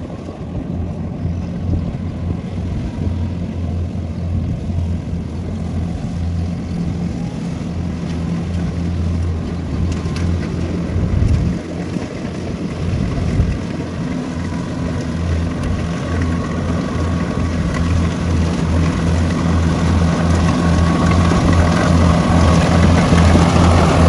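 Kubota rice combine harvester's diesel engine running steadily while it cuts and threshes rice, a low drone that grows louder near the end as the machine comes close.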